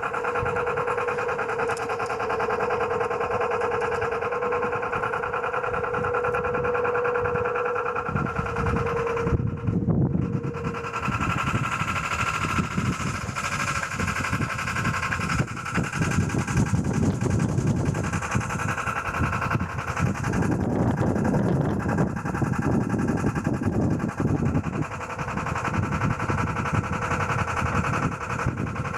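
Sailboat's inboard Volvo Penta MD11C two-cylinder diesel running steadily under way. A rough, uneven rumbling noise joins it about eight seconds in.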